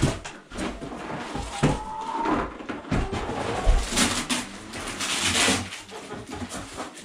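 Cardboard boxes being handled and one slit open with a knife: knocks and scraping, with rustling, tearing bursts about four and five seconds in. An ISA Brown hen gives a short high call about two seconds in.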